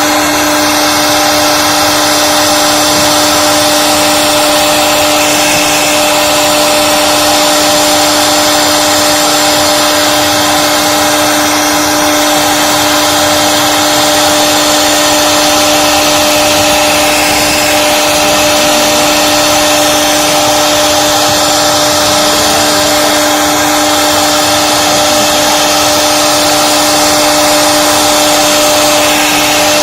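CNC carving router's high-speed spindle running at a steady pitch, with a hiss of cutting noise over it, unbroken throughout.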